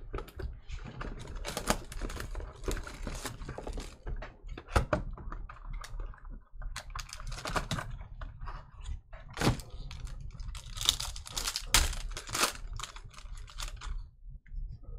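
A Panini Obsidian basketball card pack being opened and handled: an irregular run of crisp crinkling and clicking as the wrapper is worked open and the cards are slid out and shuffled in the hands.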